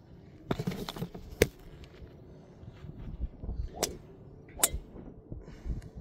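Several sharp clicks and knocks as a golf ball is handled and teed up on a driving range, the loudest about one and a half seconds in, with a brief rustle of movement just before it.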